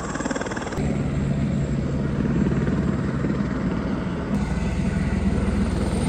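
Aircraft engine running on an airport apron: a steady low, rapid throb that shifts abruptly about a second in and again a little past the middle.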